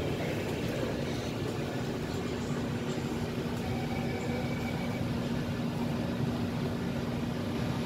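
Interior of a stationary SMRT Kawasaki C151 train with its doors open: the steady hum and air noise of the train's onboard equipment, mainly its air-conditioning, with a steady low tone that grows stronger a few seconds in.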